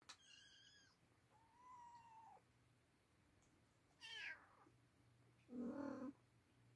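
Oriental cat and kittens meowing: three high, thin mews, the third sliding steeply down in pitch, then a lower, louder meow near the end.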